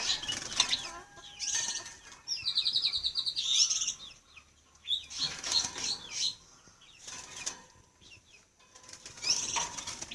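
Caged songbirds chirping and calling in short bursts, with a fast rattling trill about two and a half seconds in.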